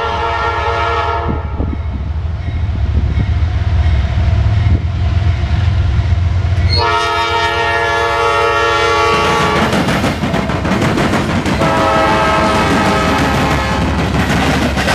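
Norfolk Southern diesel locomotives blowing their air horn, a chord of several tones, as a freight train approaches and passes at a crossing. One blast ends about a second in, a second runs from about seven to nine seconds in, and a third starts about twelve seconds in. Underneath is the low rumble of the diesel engines, with wheel and rail noise as the locomotives pass near the end.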